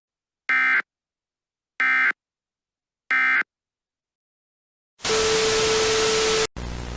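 Three short, identical bursts of EAS end-of-message data tones, the warbling digital SAME header chirp, about 1.3 s apart, marking the end of the emergency alert. After a pause, a loud burst of static carrying a steady low hum lasts about a second and a half and cuts off suddenly.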